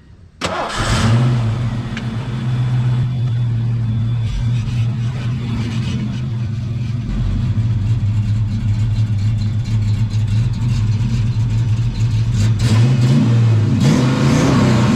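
1992 Ford Mustang's 5.0-litre V8 starting about half a second in, flaring up briefly, then idling steadily. Near the end the engine is revved, its pitch rising.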